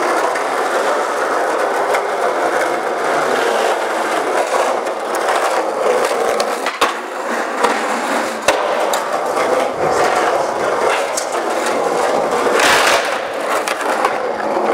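Skateboard wheels rolling steadily over a smooth concrete floor, with a few sharp clacks of the board hitting the ground, the first about halfway through and the last near the end.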